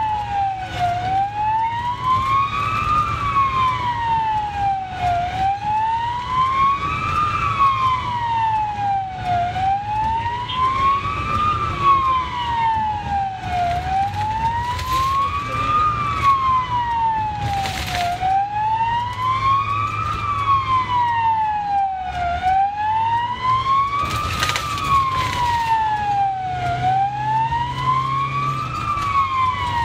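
Ambulance siren on a slow wail, heard from inside the vehicle: one tone rising and falling evenly, about four seconds per cycle, over engine and road noise.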